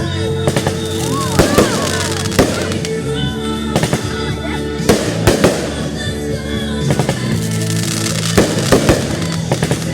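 Fireworks going off in a string of sharp bangs at irregular intervals, about a dozen, over loud music.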